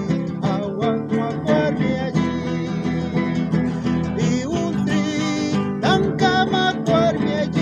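Background music led by a plucked and strummed acoustic guitar, with a melody line moving over it.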